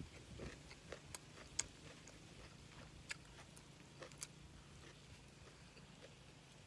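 A person quietly chewing a mouthful of food, with a few faint mouth clicks and smacks scattered over near silence.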